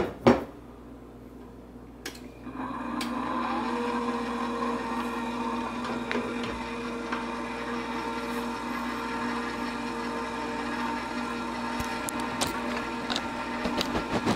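Two sharp clinks of a glass measuring cup against the stainless steel bowl, then about two and a half seconds in a KitchenAid bowl-lift stand mixer (KSM55) starts and runs steadily, its motor humming as the dough hook turns through bread ingredients.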